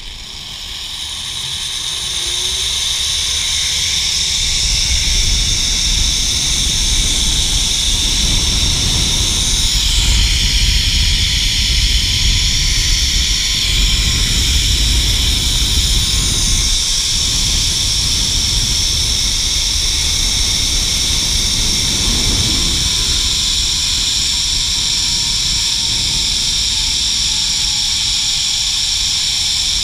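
Zipline trolley pulleys running fast along the steel cable: a loud, steady high whirring that builds over the first few seconds as the rider picks up speed, with wind rumbling on the microphone. A faint whine drops slowly in pitch near the end.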